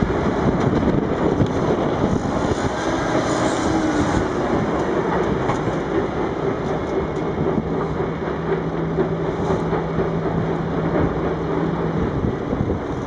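Sandvik CM 1208i tracked mobile crusher running, with a steady dense clatter and rumble of rock going through it, together with the engine of the Komatsu PC600LC excavator loading its hopper. A steady low hum joins in for a few seconds in the second half.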